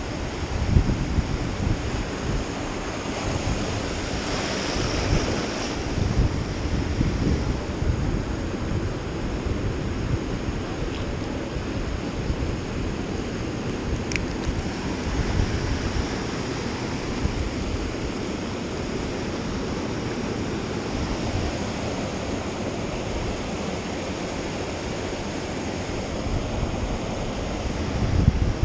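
Ocean surf breaking and washing around shoreline rocks, with wind buffeting the microphone in gusts.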